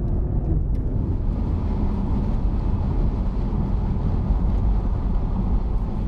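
Audi TT RS's 2.5 TFSI five-cylinder engine and exhaust running steadily on the move, without revving. It is a low rumble mixed with road and wind noise.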